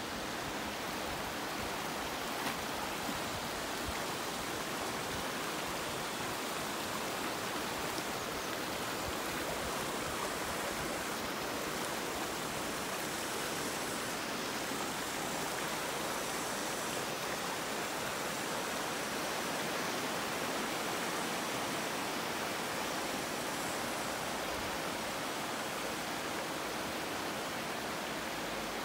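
Shallow rocky stream rushing over stones: a steady, even rush of water.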